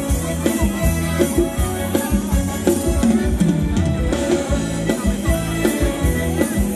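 Live Thai ramwong dance band music with a steady drum-kit beat of about two hits a second over a bass line.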